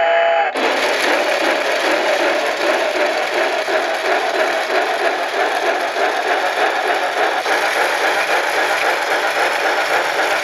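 Novelty steam-locomotive alarm clock going off. A recorded steam-whistle blast cuts off about half a second in, then the clock plays loud, steady, rhythmic chuffing of a steam train.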